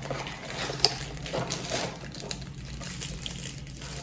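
Soft rustling and handling of small accessories in their packaging, with a few light clicks.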